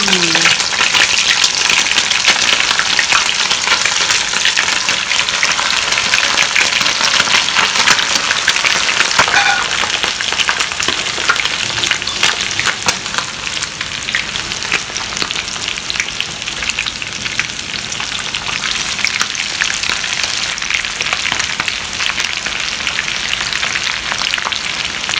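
Crumb-coated chicken wings frying in a pan of hot oil, with a dense, steady crackle and sizzle that eases a little about halfway through. The cook thinks the oil was let warm up too much, so the crumbs risk burning.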